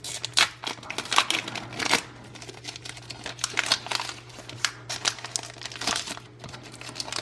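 Foil wrapper of a Pokémon trading card booster pack crinkling as it is torn open and handled, in quick irregular crackles.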